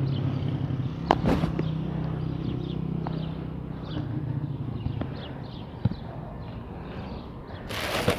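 A vehicle engine running with a steady low hum that fades after about five seconds, with a couple of sharp clicks about a second in and faint high chirps later on.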